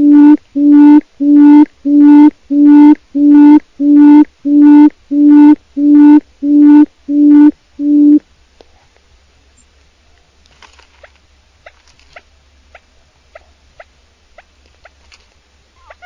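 Quail call: a low hoot repeated evenly about twice a second, which stops abruptly about eight seconds in. Faint clicks and soft short chirps follow.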